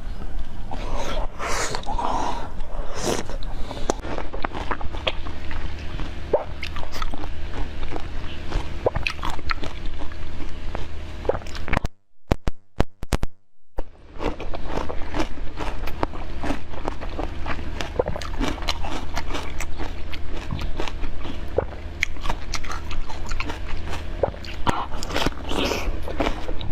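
Close-miked ASMR eating: a person biting and chewing food, with many crisp crunching and clicking mouth sounds over a low steady hum. About halfway through the sound drops out for a couple of seconds, leaving only a few clicks, then the chewing resumes.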